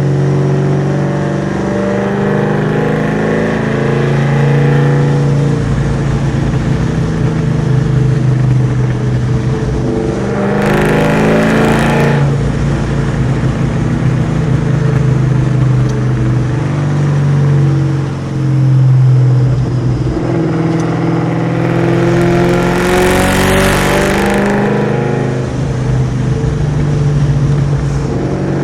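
Whipple-supercharged, cammed 4.6-litre V8 of a Terminator Mustang SVT Cobra with Kooks headers and Borla ATAK exhaust, under way with its engine note rising and falling. Two hard accelerations, about ten and twenty-two seconds in, bring a much louder, harsher rush of sound.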